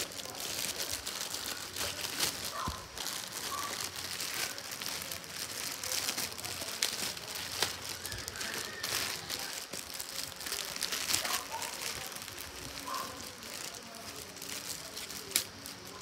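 Clear plastic bags crinkling and rustling as they are handled and pulled open, with irregular crackles throughout and a sharp click near the end.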